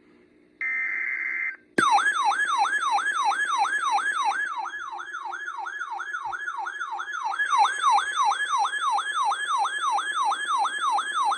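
Emergency Alert System tornado-warning alert. It opens with a one-second burst of the SAME data header's digital warbling tones. Then a loud siren-like alert tone sweeps down from high to low about three times a second for about ten seconds.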